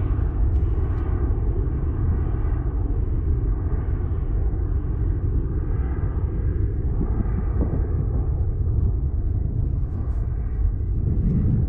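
Steady low rumble of wind buffeting the microphone, with the fainter drone of an aircraft passing overhead.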